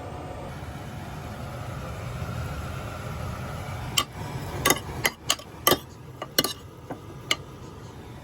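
A kitchen utensil clinking and knocking against cookware, about nine sharp clinks from about four seconds in, over a steady low hum.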